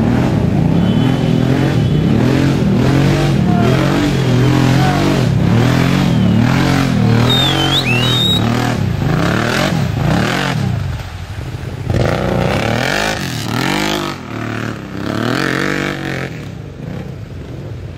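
Quad bike (ATV) engine revving up and down over and over as it is driven through deep mud. Partway through, the engine sound gets quieter for a while.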